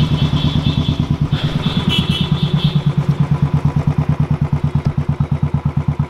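Royal Enfield single-cylinder motorcycle engine idling with an even, rapid thump.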